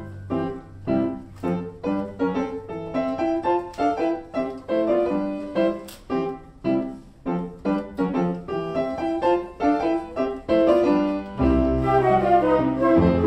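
A youth ensemble of wind and string players performing a classical piece: a run of short, separate notes, a few each second, with a fuller low part coming in near the end.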